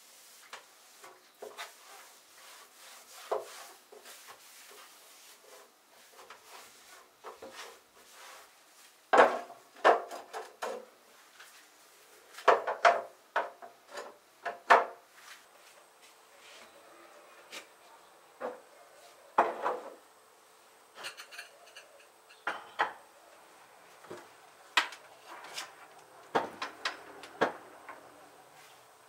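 Household objects being handled: scattered knocks, clicks and rubbing, coming in several short flurries. A faint steady hum comes in about halfway through.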